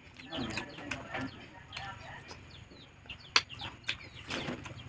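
Eating by hand: chewing and fingers mixing rice and curry on a banana leaf, a string of faint clicks and smacks with one sharp click about three seconds in. Birds chirp in the background.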